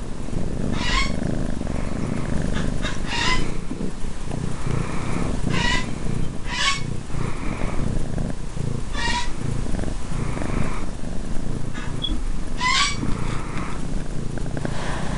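Kitten purring steadily close to the microphone, with several brief sharper sounds over the purr.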